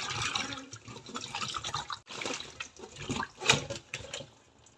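Water splashing and sloshing in a stainless steel bowl as hands rub and turn cauliflower florets to wash them: irregular splashes, the loudest about three and a half seconds in, dying away near the end.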